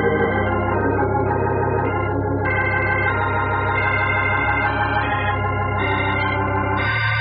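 Organ music bridge: held chords that change every second or so, moving to a fuller chord near the end, the cue marking a scene change in a radio drama.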